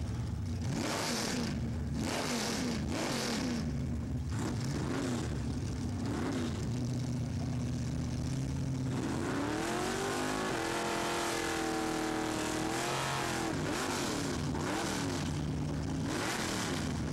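Drag-racing Chevrolets' engines revving at the starting line. There are several quick blips of the throttle over the first few seconds. Just past the middle one engine is run up and held at high revs for about three seconds, then drops back, followed by more short revs.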